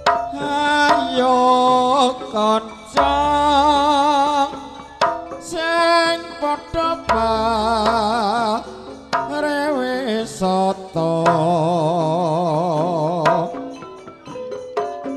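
Javanese gamelan playing a tayub gending, with a voice singing long, wavering held notes over sharp kendang hand-drum strokes and struck metal gamelan tones.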